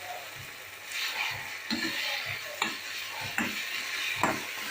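Manchurian gravy sizzling in a pan as it is stirred with a spoon, the spoon scraping and knocking against the pan about once a second.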